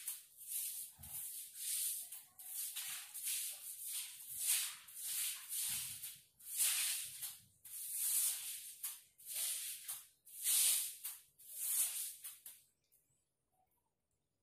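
Broom swept in repeated swishing strokes across a wet tiled floor, about one to one and a half strokes a second, stopping shortly before the end.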